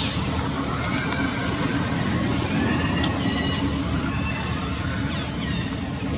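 Outdoor background of a steady low rumble, with a few short, high chirps that fall in pitch, one about a third of the way in and another near the end.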